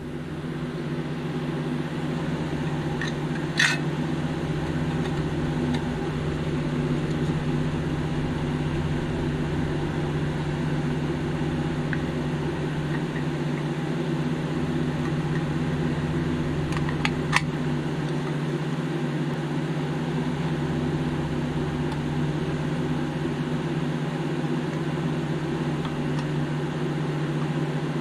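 A steady mechanical hum, like a fan or small motor running, with a sharp click about four seconds in and two quick clicks a little past the middle as the toy van's painted body and plastic interior are handled and fitted together.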